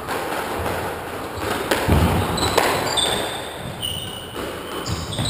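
Squash rally: the ball knocked by rackets and off the court walls, with several sharp knocks about two seconds in, and short high shoe squeaks on the wooden floor in the second half.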